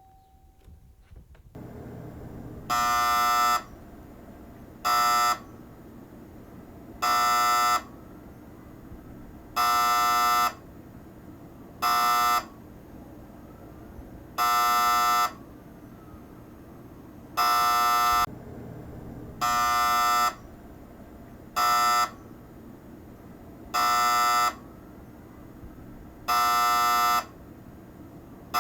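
An electric buzzer sounding in repeated short blasts, about eleven of them, each half a second to a second long and roughly two seconds apart, over a steady low background hum.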